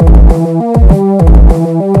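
Electronic synthesizer music: a looping pattern of stepping synth notes over a deep bass that slides down in pitch on each beat, about two beats a second.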